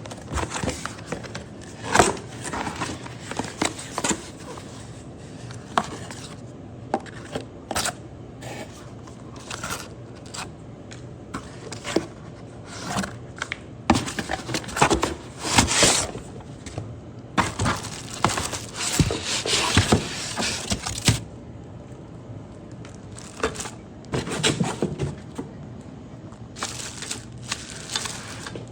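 Handling noise: irregular clicks, knocks and scrapes of objects being moved and set down, with a denser stretch of rustling noise from about 17 to 21 seconds in.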